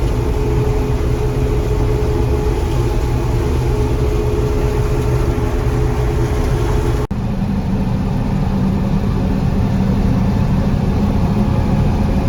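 John Deere 4400 combine running steadily at harvest, a loud, dense machine drone with several steady tones. About seven seconds in it cuts off abruptly and gives way to a similar steady drone, lower in pitch.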